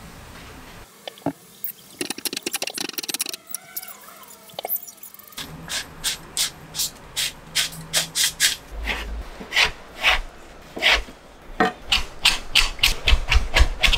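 A spatula scrapes and stirs in a frying pan, then a kitchen knife chops braised burdock root strips on a cutting board: a steady run of knife strokes about two a second that grows louder and quicker near the end.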